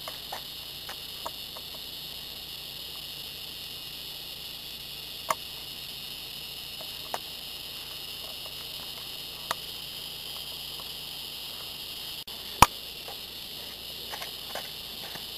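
Steady high-pitched chorus of crickets, with a handful of sharp clicks or knocks scattered through it, the loudest about twelve and a half seconds in.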